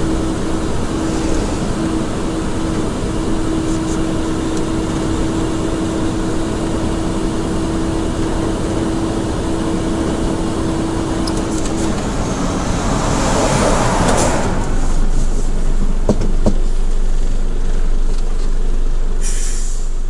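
Mitsubishi Fuso heavy truck driving, its engine and road noise heard from inside the cab, with a steady whine that stops about twelve seconds in. A rush of noise swells past around the middle, and a short hiss comes near the end.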